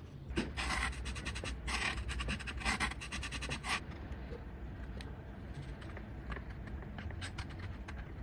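Rough scratching of wood against thermocol foam as hands work a small wooden plate into the foam fuselage: four short scratching strokes in the first four seconds, then only faint handling noise.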